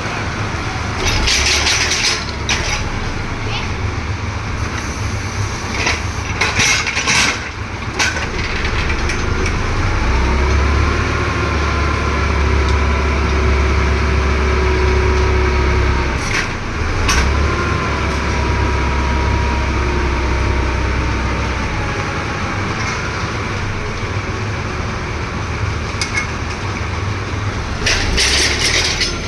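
Ground-drilling machine's engine running steadily. About a third of the way in it settles into a heavier, deeper drone with a pitch that rises and falls, dips briefly, then picks up again before easing off. Short clattering bursts come near the start and again near the end.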